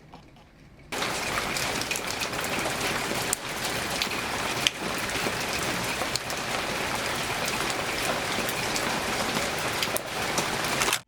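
Rain falling: a steady, dense patter with scattered sharper drop ticks that starts abruptly about a second in.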